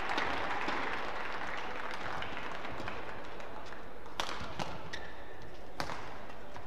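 Badminton rally: sharp cracks of rackets hitting the shuttlecock, the loudest two close together about four seconds in and another near six seconds, over a steady murmur of the arena crowd.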